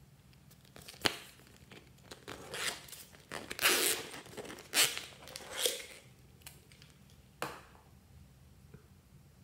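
A zippered cylindrical pencil case being handled and unzipped: a sharp click about a second in, then several short rasping runs of the zipper, and another click near the end.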